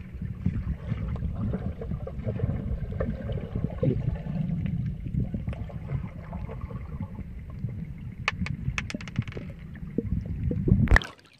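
Pool water heard through an underwater microphone: a muffled, churning low rumble of water moved by swimmers, with a quick run of sharp clicks and pops about eight to nine seconds in. A louder burst comes near the end, then the sound drops away suddenly.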